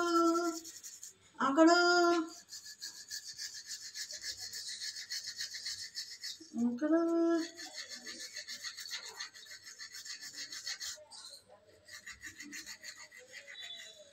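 A manual toothbrush scrubbing a small child's teeth, with fast, steady back-and-forth rasping strokes. Brief voice sounds break in three times, near the start and about halfway through.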